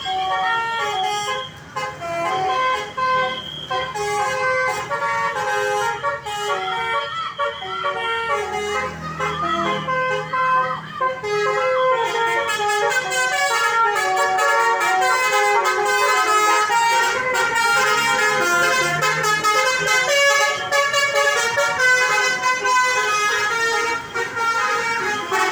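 Indonesian 'telolet' multi-tone bus horns of the 'basuri' type, played by several buses in a convoy and sounding melodies in quick stepping notes. Several horns overlap into a continuous loud jangle of tunes.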